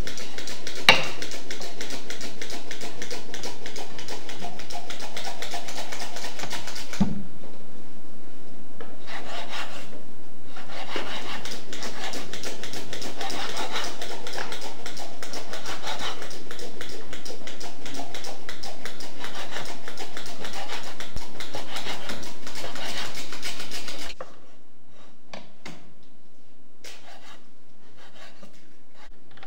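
Knife chopping beef and fat-tail fat on a wooden cutting board, a fast continuous run of strokes with short pauses; it drops to quieter, scattered taps about 24 seconds in.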